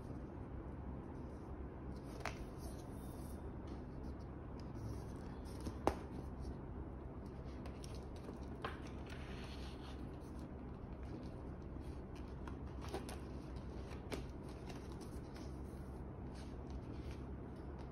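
Large glossy card and paper album inserts rustling and sliding as they are handled and leafed through, with a few light taps or clicks, the sharpest about six seconds in, over a steady low hum.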